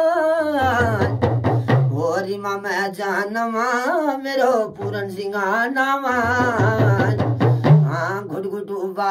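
A man sings an Uttarakhandi folk song in a long, wavering, ornamented voice while beating a hudka, the laced hourglass drum of Uttarakhand. Its low, humming tone comes in two long stretches and steps up in pitch near the end.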